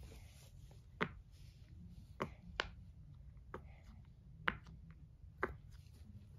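Silicone pop-it fidget toy being pressed, its bubbles popping in about six sharp, irregular clicks.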